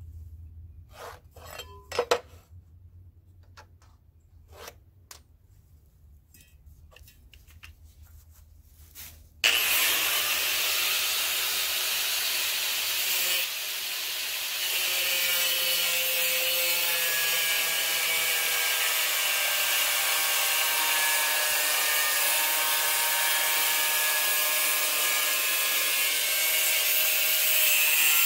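A few light clicks and knocks from handling the tool and board, then about nine and a half seconds in a corded angle grinder starts with a sudden steady whine over a loud grinding hiss and cuts along a fiber-cement siding plank.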